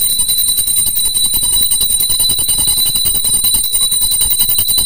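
Puja bell rung rapidly and without pause: a steady, high-pitched ringing made of fast, even strikes.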